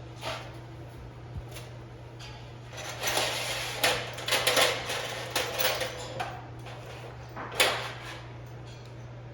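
Clattering and scraping of metal parts being handled during washing-machine reassembly, busiest in the middle, with a sharp knock near the end, over a steady low hum.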